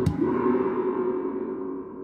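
A metal percussion object struck by hand, ringing with several steady tones like a gong. Two sharp taps land right at the start, and the ring fades slowly after them.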